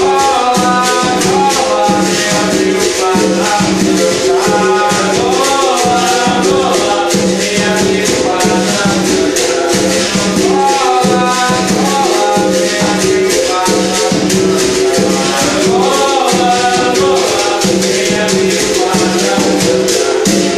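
Capoeira Angola music played live: a berimbau, its steel string struck with a stick, with a caxixi basket rattle shaking a steady fast beat, over a tall hand drum.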